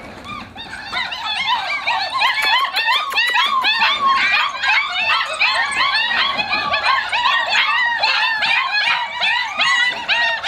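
Several young German Shepherd puppies whining and yelping together in a dense chorus of short, high cries that each rise and fall, many overlapping each second. The chorus builds up about a second in and keeps going.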